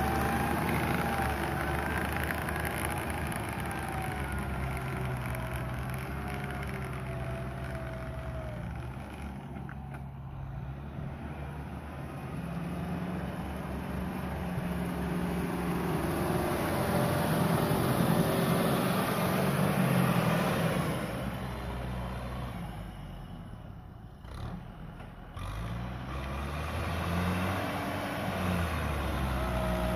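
Kubota M6040 tractor's diesel engine working under load in mud, its pitch rising and falling as it revs up and eases off. The loudness swells and drops, briefly falling away about three-quarters of the way through.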